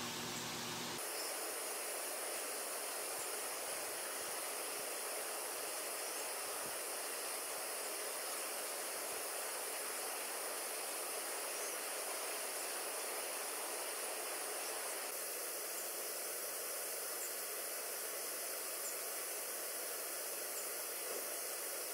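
Steady hiss of a garden sprinkler spraying water.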